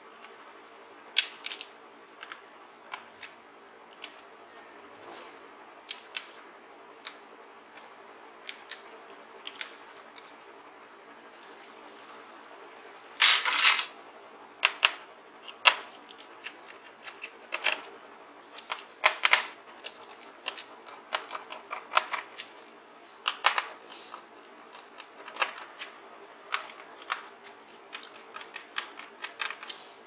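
Sharp, irregular clicks and taps of metal tweezers and fingers working on a laptop's exposed plastic palmrest and its ribbon-cable connector latches, with a denser run of louder clicks about halfway through.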